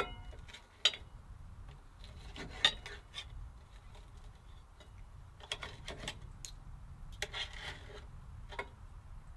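Steel knife and fork scraping and clinking on an enamelware plate while cutting a cooked pork chop: a string of short scrapes and clicks a second or two apart, with a brief ringing clink at the start. A low steady rumble runs underneath.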